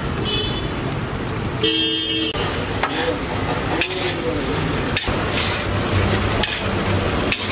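Metal spatula clanking and scraping against a large wok as rice is stir-fried, a knock every second or so. A vehicle horn honks once, briefly, about two seconds in, over street traffic noise.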